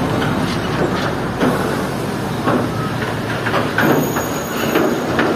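Heavy diesel truck pulling a loaded flatbed trailer, its engine running steadily under loud rattling and irregular clanking knocks from the trailer.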